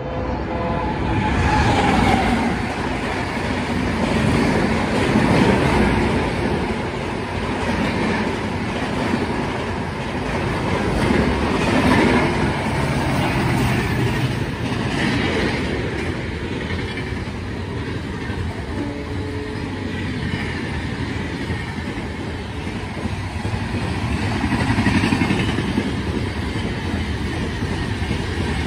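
Express train of LHB passenger coaches running past at speed: a continuous rush and rumble of wheels on rail with some clickety-clack, swelling and easing as the coaches go by.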